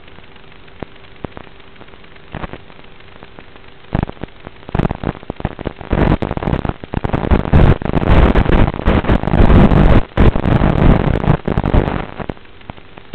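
Noisy audio of an analog FPV video link: a steady hiss with a faint hum, broken by cracks from about four seconds in that build into a loud, dense crackle from about six to twelve seconds, then drop back to hiss.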